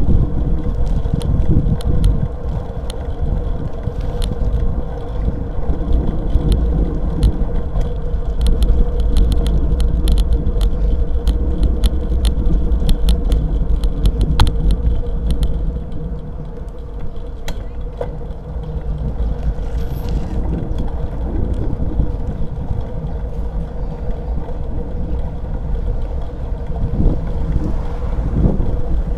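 Wind buffeting the microphone of a handlebar-mounted camera on a moving road bicycle, a heavy steady rumble with tyre and road noise, and many small irregular clicks and rattles from the bike.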